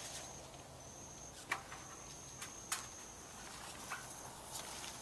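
A few sharp snaps and rustles as a basket fruit picker on a pole works through the branches and leaves of an ackee tree. Under it runs a steady, high-pitched insect note that breaks off now and then.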